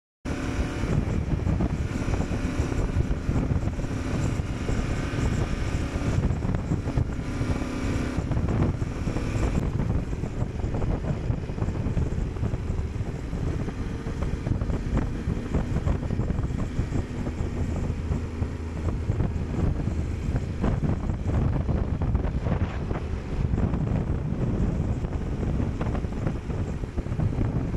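Motorcycle riding at speed: a steady engine drone under heavy wind rush on the microphone.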